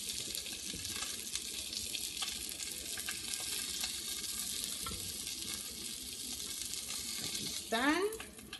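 Bacon-wrapped asparagus and cream-cheese-stuffed jalapeño halves sizzling and crackling as they fry in a pan, with light clicks of tongs turning them. Near the end, a brief rising squeak cuts in.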